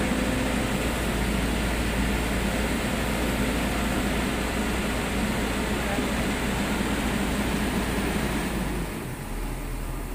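Tracked excavator's diesel engine running steadily under load while it works its bucket, with the sound dropping in level about nine seconds in.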